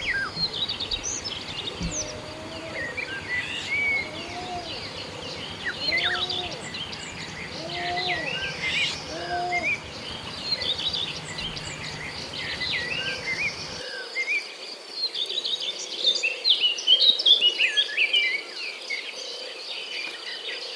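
Birds chirping and trilling over a steady high insect drone. In the first half, an unidentified low arching call repeats about five times, roughly once a second and a half: the strange sound that the recordist could not name.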